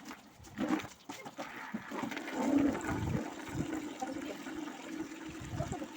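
Water running and splashing, with faint voices underneath.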